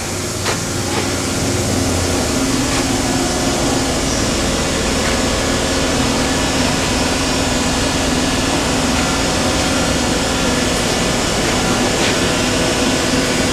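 A powered-up Okuma MA-50HB CNC horizontal machining center at idle, giving a steady hum with a few held tones, before the spindle is run up.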